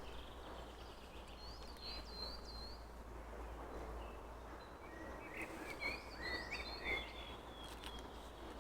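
Faint birdsong: two short runs of quick, high, repeated notes, with a few lower chirps between them, over a steady low background rumble.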